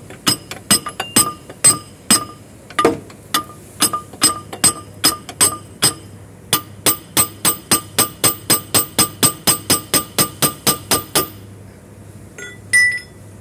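Hammer striking steel parts under a truck during clutch removal: sharp ringing blows, uneven at first, then a steady run of about three a second that stops about eleven seconds in, followed by a couple of lighter clinks near the end.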